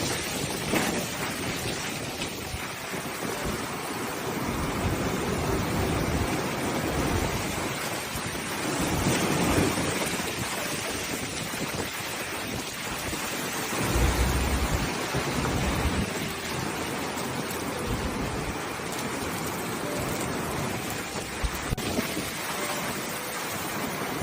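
Typhoon storm noise: a steady rush of wind and driving water, with stronger gusts rumbling on the microphone about nine and fourteen seconds in.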